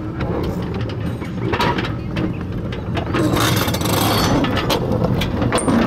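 Small mine-railway train running on narrow track: a low rumble with repeated clicks and knocks from the wheels and cars, growing louder about three seconds in.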